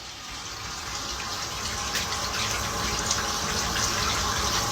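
Steady rush of running water, growing gradually louder.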